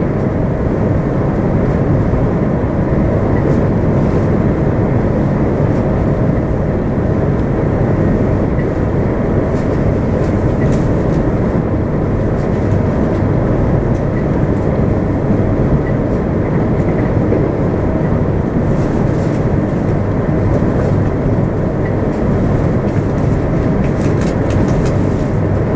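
c2c electric passenger train running along the line: a steady rumble of wheels on rails, with faint light ticks now and then.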